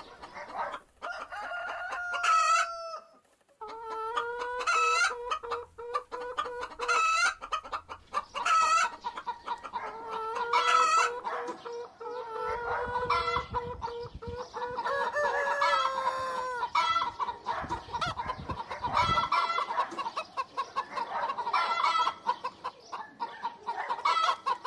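Bantam chickens clucking repeatedly in short calls, with longer held calls about four and ten seconds in.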